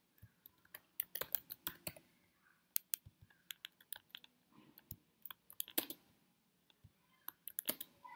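Typing on a computer keyboard: sharp key clicks in short bursts with pauses between them.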